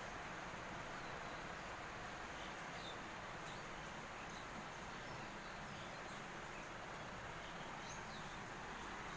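Faint, steady background noise of a cattle shed, with a few brief, faint high chirps a few seconds in and again near the end.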